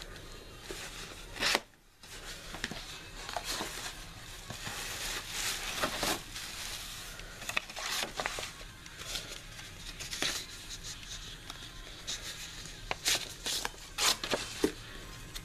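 Cardboard box flaps and paper inserts being handled and opened: irregular rustling and crinkling with scattered sharper crackles and taps.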